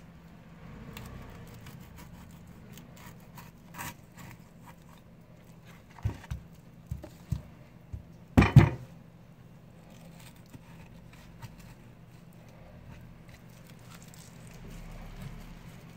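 Knife cutting and scraping along a bluefin tuna collar on a cloth-covered cutting board, with scattered light clicks. A run of knocks comes in the middle, the loudest a heavy thump as the piece is turned over on the board.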